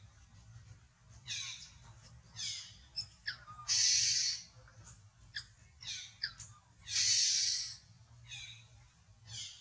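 Baby macaque crying: a string of short, high squeals that fall in pitch, about one a second, broken by two longer, louder harsh screams about four seconds in and again near seven seconds.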